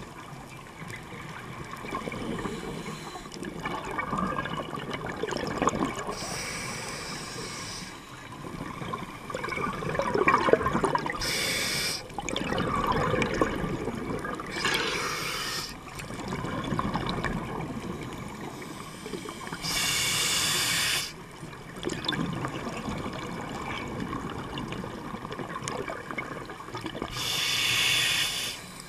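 Scuba diver breathing through a regulator, heard underwater: five short hisses of inhaled air, one every few seconds, with bubbling exhaled air in between.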